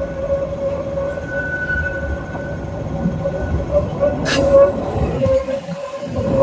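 Hong Kong Light Rail Phase 1 light rail vehicles passing close by on curved track, running with a steady whine over a low rumble. A single sharp clack comes about four seconds in as the wheels cross the track junction.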